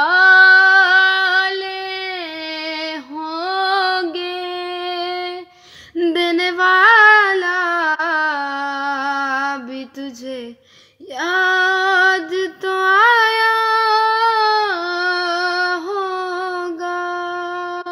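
A woman singing unaccompanied, holding long, ornamented notes in three phrases with two short breaths between them.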